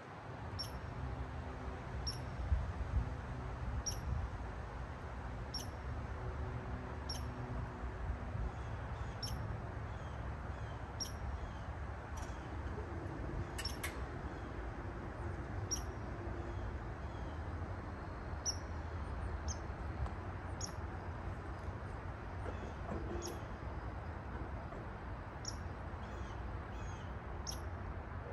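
A small bird chirping: a short, high chirp repeating about every second and a half, over a steady low rumble.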